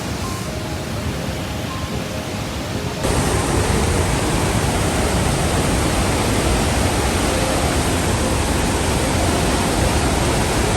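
Great Falls of the Passaic River pouring, a steady loud rush of falling water. It turns suddenly louder and fuller about three seconds in.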